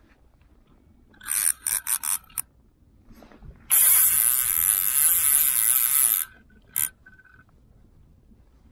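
Fly reel's click-and-pawl drag ratcheting while a large hooked white-spotted char is played. It comes first in several short bursts, then as one loud, steady run of about two and a half seconds, then once more briefly.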